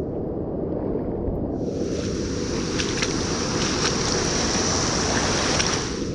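Rushing water of a dam river, with wind buffeting the microphone. A louder hiss comes in about a second and a half in and drops away near the end.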